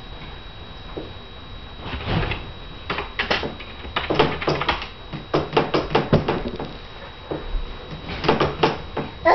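Plastic baby gate being shaken and pushed by a toddler: quick bursts of clattering knocks and rattles that start about two seconds in.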